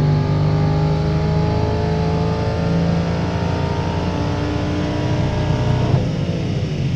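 Audi RS6's 4.0 TFSI V8, rebuilt around a single Garrett G42-1200 turbo, at full throttle on a chassis dyno, its note climbing steadily toward about 7,500 rpm on a low-boost pull of about 0.65 bar. About six seconds in the throttle is closed and the engine note drops away as it coasts down.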